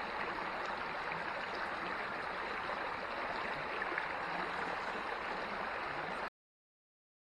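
Small creek water running steadily. The sound cuts off suddenly to dead silence about six seconds in.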